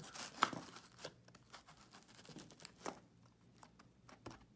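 Faint, scattered scrapes and crunches of a white polystyrene foam riser block being pushed and settled into a hole in a hard scenery hillside, the loudest about half a second in and again near three seconds.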